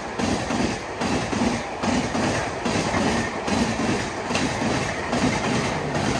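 Wheels of the Mumbai–Delhi CR Rajdhani's passenger coaches clattering over rail joints as the train passes at speed: a rhythmic clickety-clack of about two to three beats a second over a steady rush of running noise.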